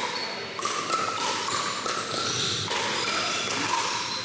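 Pickleball paddles hitting a plastic ball in a rally: several sharp pops, echoing in a large gym.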